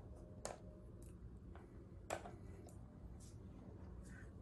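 Faint clicks and rustles of multimeter test leads and their plastic connectors being handled at a battery plug, over a low room hum; the clearest clicks come about half a second and two seconds in.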